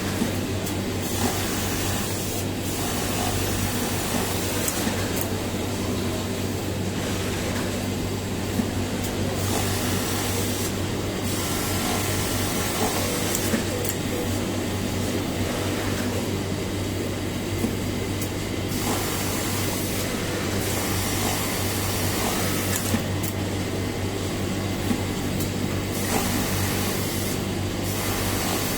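Industrial sewing machine running with a steady low hum, with a sharp click every few seconds.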